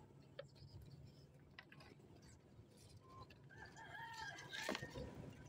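A rooster crowing faintly: one crow lasting just over a second, starting about three and a half seconds in, with a sharp click near its end.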